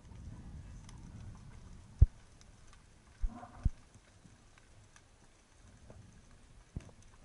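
Sharp knocks heard underwater through a camera mounted on a speargun: one loud knock about two seconds in, two more a little after three seconds, and a smaller one near the end. A low rumble of moving water runs through the first second and a half.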